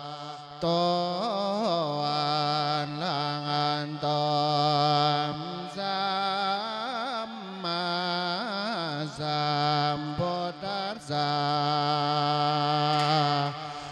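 A Thai Buddhist monk sings an Isan-style sung sermon (thet lae) into a handheld microphone. One male voice holds long notes with wavering, ornamented turns, pausing briefly twice for breath.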